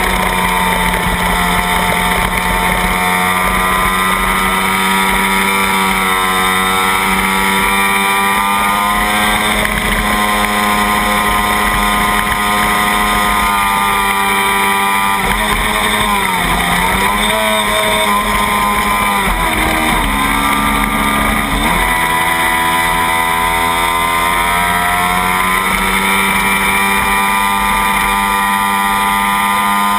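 Kawasaki Ninja sport bike's parallel-twin engine held at high revs at racing speed, with wind rush. About halfway through the revs dip and climb back, then step through a couple of gear changes before holding steady again.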